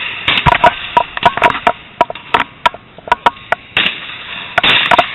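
Irregular sharp clicks and knocks, several a second, some with a short metallic ring, with bursts of rushing noise about four and five seconds in.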